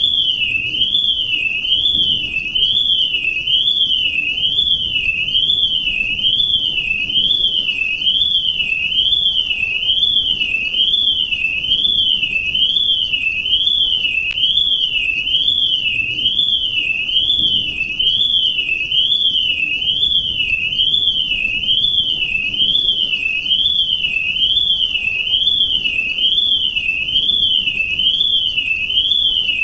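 Electronic alarm tone, high-pitched, sweeping up and down in pitch about once a second in an unbroken warble.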